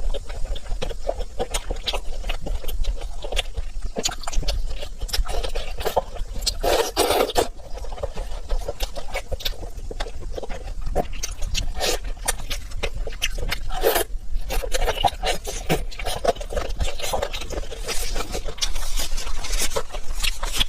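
Close-miked eating sounds: wet chewing and mouth smacking with many small clicks, and a few louder slurps or sucking bursts about a third and two-thirds of the way through.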